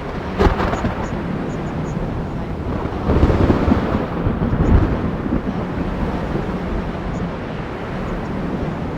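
Thunderstorm ambience: a steady rushing noise with a sharp crack of thunder about half a second in and a low rolling rumble of thunder from about three to five seconds in.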